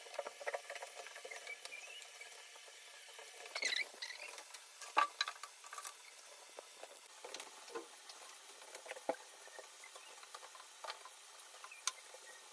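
Faint household tidying: scattered light knocks, clicks and rustles as a blanket is folded and items are moved about on a small table, with a couple of short high squeaks about four seconds in.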